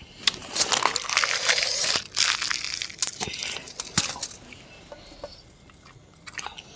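Crisp puffed luchi (deep-fried puri bread) torn apart by hand, a dense crackling and tearing with sharp little snaps for about four seconds. Then it drops to a few faint clicks as fingers work in the curry bowl.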